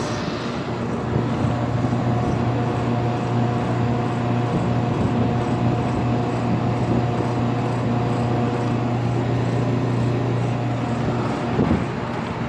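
Central air-conditioner outdoor condensing unit running: a steady low hum from the compressor over the even rush of the condenser fan.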